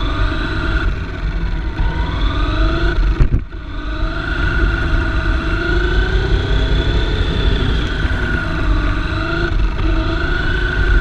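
Electric drive motor and gears of a 1/10-scale F1/10 race car whining, the pitch rising and falling with speed, over a steady rumble of the chassis rolling on the track, heard from a camera mounted on the car. The sound drops briefly about three and a half seconds in.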